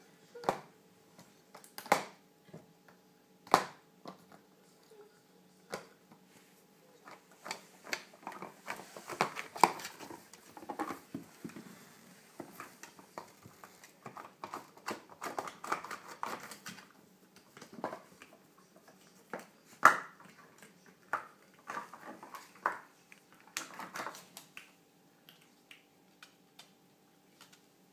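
Irregular clicks and knocks of a hard plastic disc toy and dog claws on a wooden floor as Shiba Inu puppies paw and mouth the toy, with some scraping between them. The loudest knock comes about twenty seconds in.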